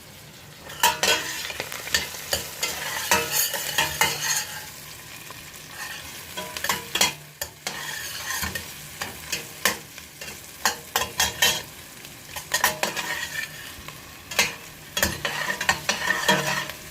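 Onions sautéing in hot oil in a pan, sizzling steadily while a cooking utensil stirs them, scraping and knocking against the pan many times.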